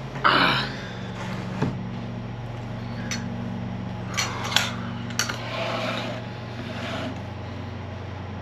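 Spoon and dishware clinking: a short rattle just after the start, then several sharp clinks a few seconds in, over a steady low hum.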